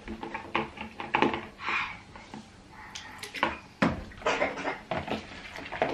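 Irregular clicks, taps and knocks of bowls, utensils and a plastic bottle being handled on a tabletop while slime ingredients are mixed.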